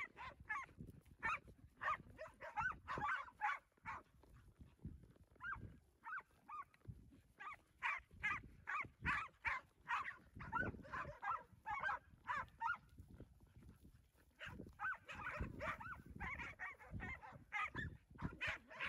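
A herding dog barking repeatedly at cattle, in quick runs of short barks with two brief pauses.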